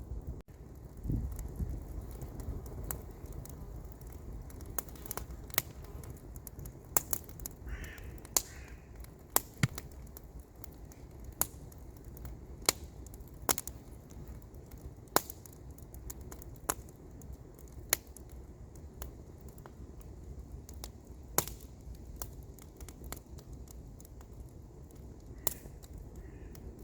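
Wood campfire crackling, with sharp pops every second or so over a steady low rumble. A low thump about a second in, and a bird calls a couple of times around eight seconds in and again near the end.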